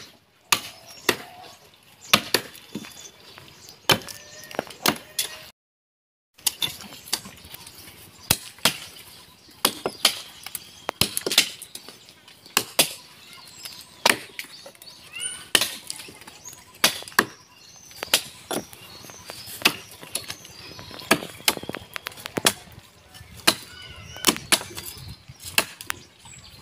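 Axe blows chopping into a tree trunk: sharp, repeated strikes about one a second, sometimes two in quick succession.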